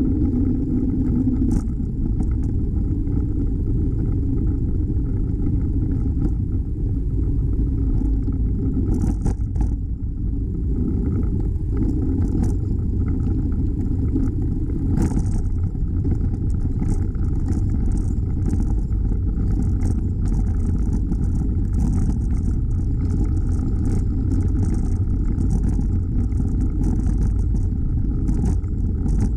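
Steady low rumble of wind and road noise from riding a bicycle, with light clicks and rattles in the second half.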